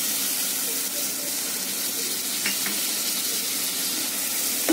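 Onion-tomato masala sizzling steadily in a non-stick frying pan with a little water just added, stirred with a spatula that makes a few faint scrapes.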